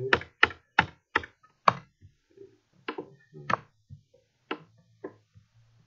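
Computer keyboard keys clicking as they are pressed: a quick run of sharp clicks in the first two seconds, then sparser, fainter ones.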